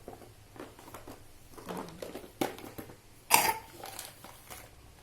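Plastic toy pieces and packaging being handled: a scatter of short clicks, knocks and rustles, the loudest about three seconds in.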